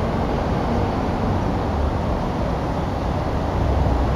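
Wind buffeting the microphone: a steady rumbling noise with no distinct events.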